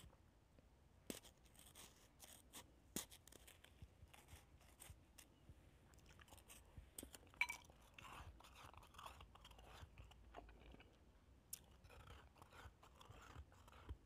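Faint crunching and chewing of shaved ice, with scattered sharp crunches and one louder click about halfway through.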